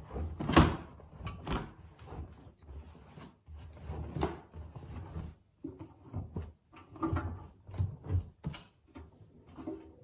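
Washed laundry being pulled by hand out of a Bauknecht front-loading washing machine's drum: fabric rustling and dragging, with irregular soft knocks against the drum and door. The sharpest knock comes about half a second in.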